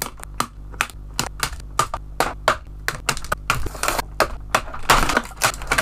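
Scissors snipping through a doll's plastic box packaging: an irregular run of sharp clicks and snips, several a second, with some plastic rustling in between.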